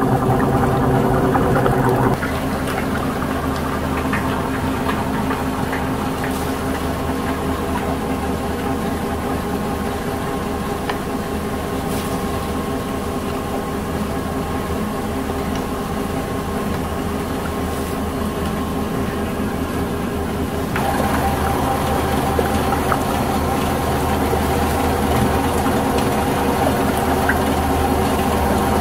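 Garaetteok (Korean rice-cake) extruder machinery running with a steady hum. Its pitch and loudness shift abruptly about two seconds in and again about two-thirds of the way through.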